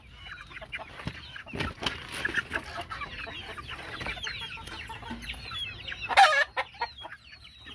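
A flock of young half-blood Asil game chickens clucking and chirping over one another, with one loud call about six seconds in.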